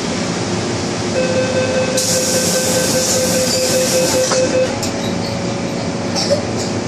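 MTR M-Train door-closing warning tone sounding steadily for about three and a half seconds, with a hiss over its middle part that cuts off sharply, followed by a few knocks as the doors shut, over the train's steady background hum.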